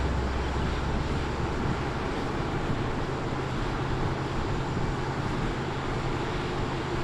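Mercedes-Benz W110 fintail saloon driving at a steady speed: a low, steady engine hum under even road noise.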